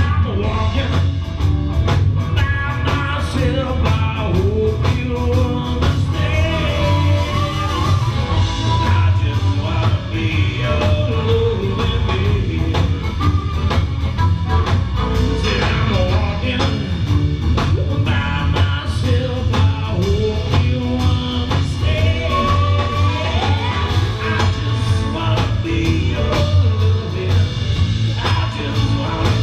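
Live blues-rock band playing: a singer over electric guitars, bass and drums, with steady drum hits throughout.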